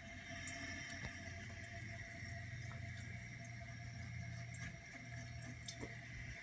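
Kohler Wellworth Class 5 toilet tank refilling: the fill valve hisses steadily as water runs into the tank, with a low hum under it. The valve fills slowly.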